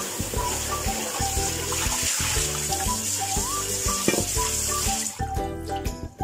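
Kitchen tap running onto a stainless steel pot as it is rinsed by hand in the sink, water splashing over and through the pot; the flow stops abruptly about five seconds in. Background music plays throughout.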